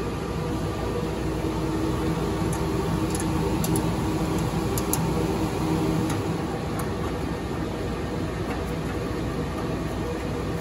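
Steady whir of telephone-switch cooling fans, with a hum of several steady tones running through it and a few faint light clicks.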